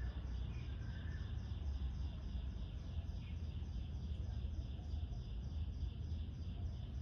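A steady run of high-pitched chirps, about three a second, from a small animal, over a low, even rumble of outdoor background noise.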